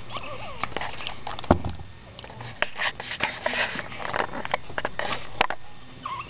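Newborn baby sucking and smacking at a pacifier: an irregular run of wet clicks and smacks with small squeaky noises. She is still learning to suck, and the sucking is uneven.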